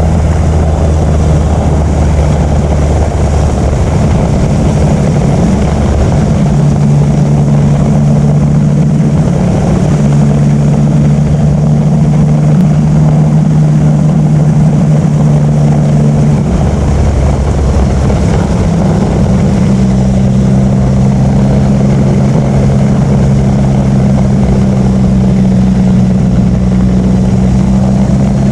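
Yamaha MT-09 Tracer's three-cylinder engine running through an Akrapovic titanium exhaust while riding. The engine note holds steady for stretches and shifts pitch a few times.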